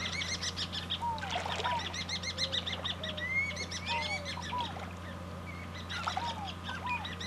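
A flock of birds calling over one another: repeated honking calls and higher chattering calls, over a steady low hum.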